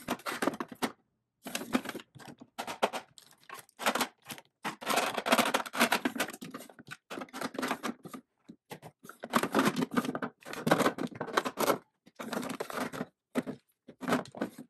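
Makeup compacts, palettes and tubes clattering and scraping against a clear acrylic drawer organizer as they are packed into its drawers: irregular clicks and rustling handling noise, with brief gaps between bursts.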